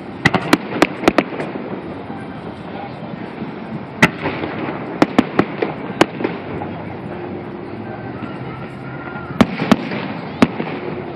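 Aerial fireworks shells bursting in quick runs of sharp reports: about five in the first second or so, another run in the middle, and three more near the end, over a steady background of crowd voices.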